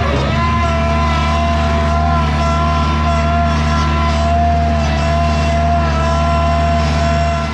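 Bobcat skid steer engine running steadily, a low hum with a steady high whine over it.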